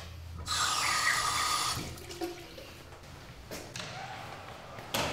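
Water rushing through restroom plumbing, loud for about a second and a half from half a second in and then tailing off, with a few sharp knocks, one of them near the end.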